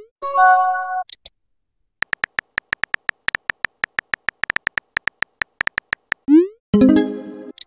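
Texting-app sound effects: a short chime-like message tone, then a fast run of keyboard tap clicks, about seven a second for some four seconds, as a message is typed. A short rising pop follows, then another message tone near the end.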